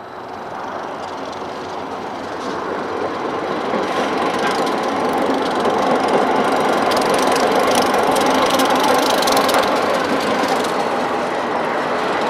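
Florida East Coast Railway freight train approaching and passing, its diesel locomotive and wheels growing louder over the first few seconds. The wheels then clatter over the rails in a dense run of clicks before the sound eases slightly near the end.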